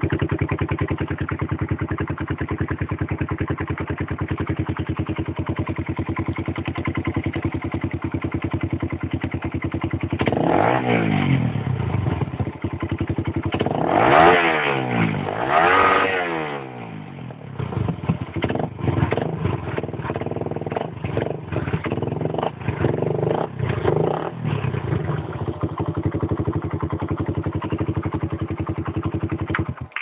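Suzuki motorcycle engine running through a handmade racing exhaust: it idles steadily, is revved up and back down three times, then idles unevenly with small throttle blips before cutting off at the very end.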